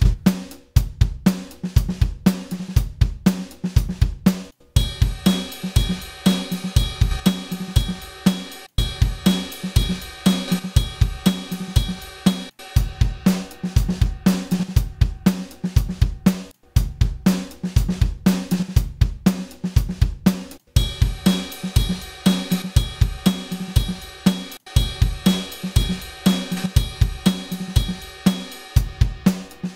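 Acoustic drum kit playing a steady groove of kick, snare, hi-hats and cymbals, heard as a drum bus squeezed by a bus compressor at about 6 dB of gain reduction. The pattern repeats in phrases of about four seconds. A brighter cymbal layer comes in about five seconds in, drops out near the middle, and returns about two-thirds of the way through.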